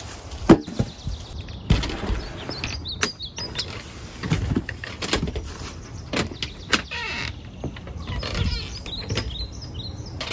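Footsteps and knocks on a porch doormat, a dozen or so short sharp hits scattered through, the loudest about half a second in. Small birds chirp several times in the background.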